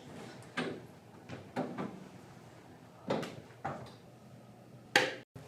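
A handful of separate knocks and clacks, irregularly spaced, the loudest near the end.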